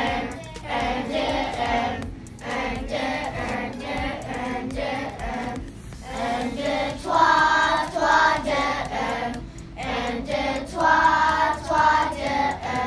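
A class of young children singing together in a group, in short phrases with brief pauses between them.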